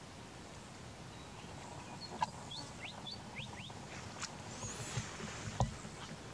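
Outdoor ambience with a steady low background rumble; partway through a small bird calls a quick run of about five short rising whistles, followed by a brief high warble. Two sharp knocks stand out as the loudest sounds.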